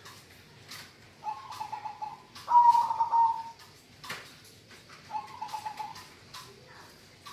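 Zebra dove (perkutut) cooing in its sustained song: a pulsed coo phrase about a second in, a louder, longer drawn-out coo about two and a half seconds in, and another pulsed phrase about five seconds in. Sharp clicks are scattered throughout.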